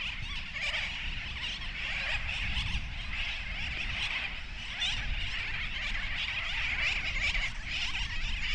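A flock of seabirds calling over the island: a dense, steady chatter of many overlapping calls, with wind rumbling on the microphone.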